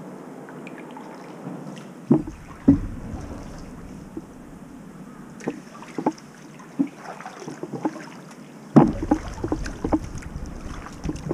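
Double-bladed kayak paddle strokes: blades dipping and splashing, with drips and a few sharper knocks, and some wind on the microphone during the louder stretches about two seconds in and near the end.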